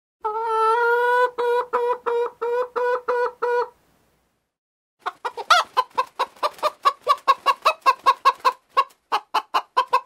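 Domestic hen clucking. One drawn-out call is followed by a run of short clucks, about three a second. After a pause of over a second comes a longer, faster series of clucks, about four a second.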